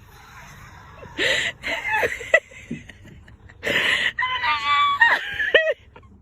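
A small child's high-pitched voice in two loud outbursts of squealing, a short one about a second in and a longer one from about halfway, the pitch sliding up and down.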